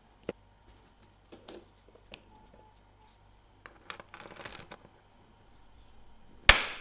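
Light metal clicks and a short scraping rustle as a tool works at a diver's watch case to prise off the bezel, then one loud, sharp snap near the end.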